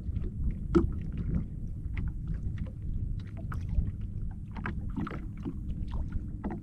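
Small wind-driven ripples lapping against a plastic kayak hull, with a steady low rumble under scattered, irregular small taps and clicks. One tap just under a second in is louder than the rest.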